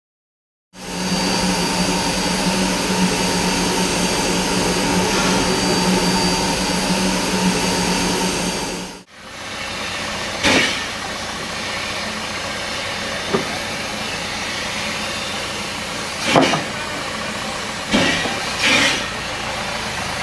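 Steady mechanical hum with hiss, cut off abruptly about nine seconds in. Then the lower steady hum of a wood-burning steam locomotive standing in steam, with a few short clunks and clatters as split firewood is loaded.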